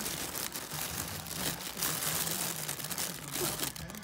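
Crinkle tunnel's crinkly lining rustling and crackling without a break as a cat inside it bats and grabs at a hand.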